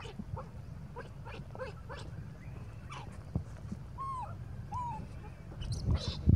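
Baby macaque calling: a quick run of short squeaky calls in the first two seconds, then two clear arched coo calls about four and five seconds in. A loud low thump comes near the end.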